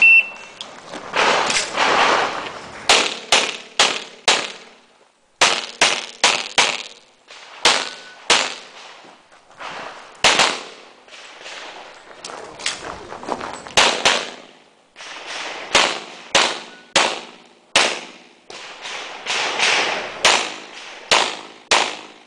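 A shot timer's short start beep, then a semi-automatic pistol fired in fast strings of shots with short pauses between them as the shooter moves. The 18-round IPSC stage has echoing reports.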